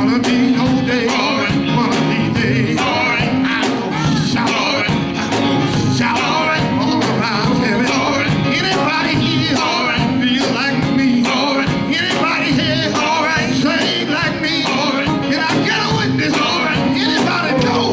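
Live gospel quartet band playing with a steady drum beat, about three strokes a second, and singing over it.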